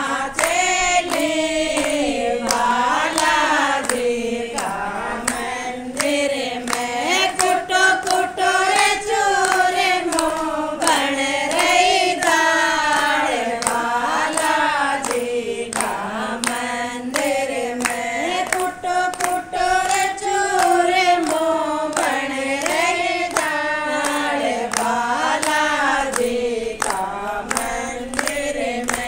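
A group of women singing a devotional bhajan to Balaji (Hanuman) together, with regular hand claps keeping the beat.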